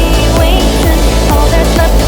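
Background music: electronic dance track with a heavy bass and a steady drum beat, synth lines sliding in pitch over it.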